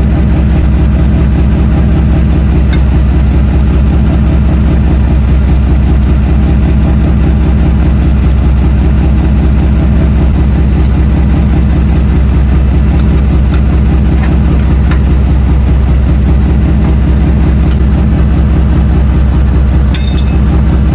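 Ford F-150 pickup's engine idling steadily, a loud, even low rumble.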